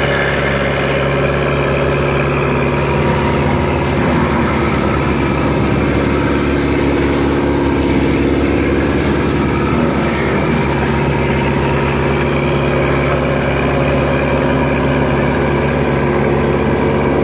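Diesel engine of a Lamtrac LTR6125 tracked forestry mulcher carrier running steadily, an even, unchanging drone.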